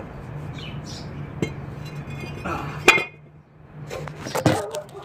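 Metal clinks and clanks as the removed brake rotor and loose bolts are handled and set down on concrete, the loudest a single ringing clank about three seconds in, with a couple more knocks near the end.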